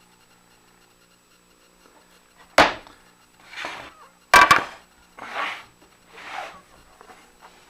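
Cherry boards being handled and knocked against each other: one sharp wooden knock about two and a half seconds in and a quick double knock about four and a half seconds in. Between and after the knocks come softer scraping sounds of wood sliding on wood.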